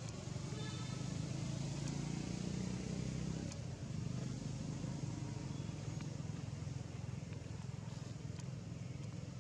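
Low, steady background rumble that swells a little in the middle, with a brief high-pitched squeak just over half a second in.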